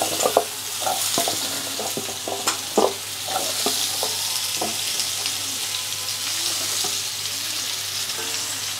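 Pieces of raw green banana and potato frying in hot oil in a non-stick pan: a steady sizzle with scattered crackles and soft knocks as more pieces go in.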